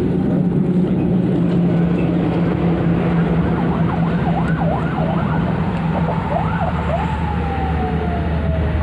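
Steady traffic noise from a nearby toll road, a continuous low rumble and hum of passing vehicles. About halfway through, a wavering siren-like tone rises and falls several times, then slides slowly down in pitch near the end.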